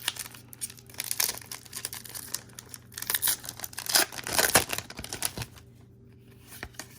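A foil Pokémon booster pack wrapper crinkling and being torn open by hand, in rapid crackly bursts that die down about five and a half seconds in.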